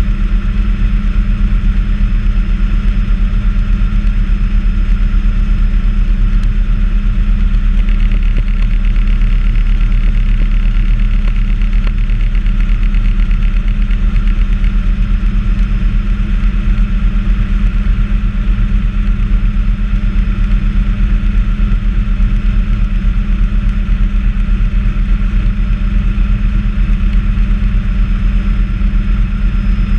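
Bell 206A helicopter in flight, heard from inside the cabin: the main rotor and Allison 250 turboshaft engine make a steady, loud low drone under a steady high whine.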